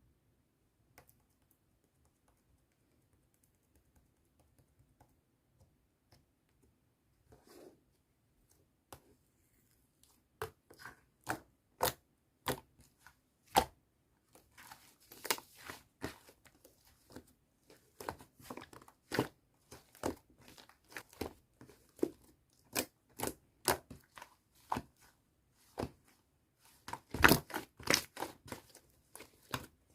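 White whipped-cream slime being handled by hand, giving sharp crackling pops and snaps. Only a few faint clicks at first, then from about ten seconds in they come thick and fast, loudest near the end.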